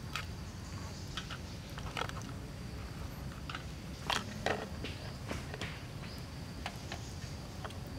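Small crabs roasting on a wire grill over charcoal, crackling and popping at irregular moments, with two louder pops close together about four seconds in.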